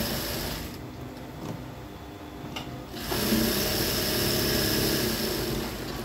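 Sewing machine stitching a pleated frill onto a blouse panel, in two runs: the first stops about a second in, and the second starts about three seconds in and runs until just before the end.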